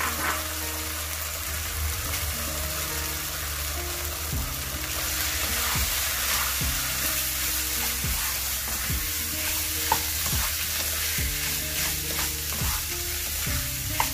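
Green curry and rice sizzling in a non-stick wok. From about five seconds in, a wooden spatula repeatedly scrapes and tosses the rice against the pan as it is stir-fried.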